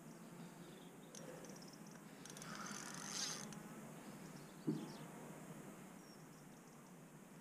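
Penn Affinity spinning reel's drag buzzing briefly, about three seconds in, as a hooked carp takes line, with a single knock about five seconds in.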